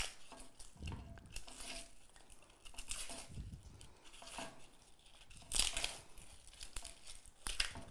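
Onion being peeled with a small knife: dry papery skin crackling and tearing in short irregular scrapes, the loudest about two-thirds through and again near the end.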